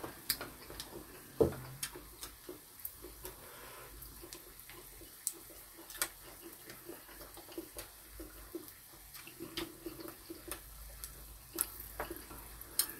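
Tableware and eating sounds: scattered light clicks of chopsticks and a metal spoon against bowls and dishes, with a louder knock about a second and a half in, over faint chewing.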